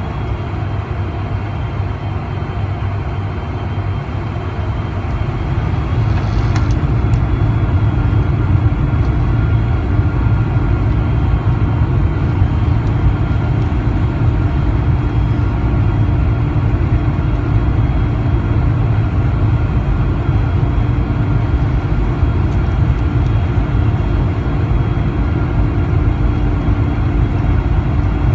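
Cabin noise of a Boeing 747-400 taxiing, heard from a window seat over the wing: a steady low rumble from its four turbofan engines at taxi power, with a steady hum. The noise grows a little louder about six seconds in, then holds.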